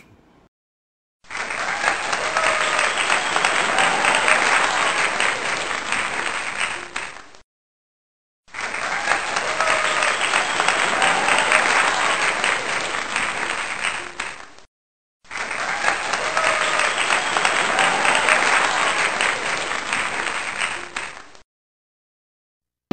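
Crowd applauding in three stretches of about six seconds each, separated by about a second of silence. The three stretches look identical, as if one applause recording is played three times.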